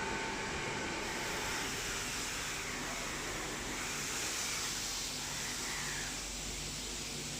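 Christ Varius automatic rollover car wash running: a steady rushing noise of spray or air with a low machine hum underneath.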